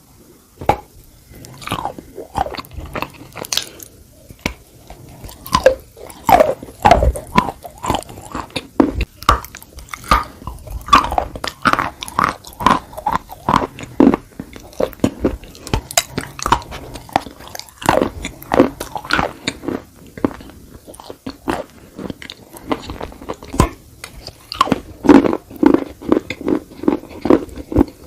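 Close-up biting and chewing of dry edible clay (khawa clay), a dense, irregular run of sharp crunches as the pieces break between the teeth.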